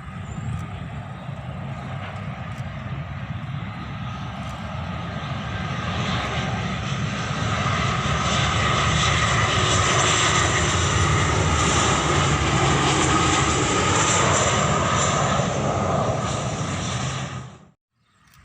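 Jet airliner passing close on its landing approach: steady engine roar with a high fan whine, growing louder toward the middle and staying loud, then cutting off suddenly near the end.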